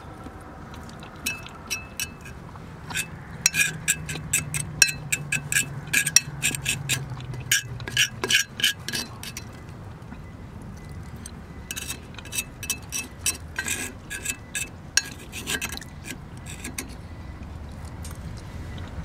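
Metal fork clinking and scraping against a cast-iron skillet as the last scraps of food are picked from the pan: quick runs of sharp clinks with a short ring, in two busy spells with a lull between them.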